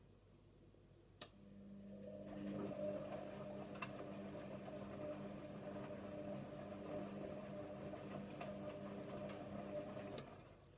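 Hotpoint WMA34 washing machine tumbling its load in the main wash: a click about a second in, then the drum motor hums steadily as the drum turns, stopping shortly before the end.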